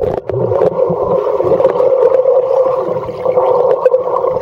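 Muffled underwater rush and gurgle of river water and bubbles, heard through a camera held just below the surface. The high end is cut away abruptly as it goes under, leaving a dense steady rush with scattered faint ticks.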